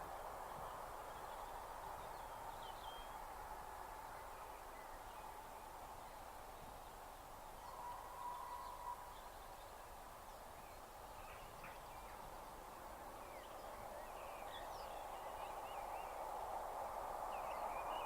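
Small birds chirping over a steady outdoor background noise that grows louder near the end, with a brief steady tone about halfway through.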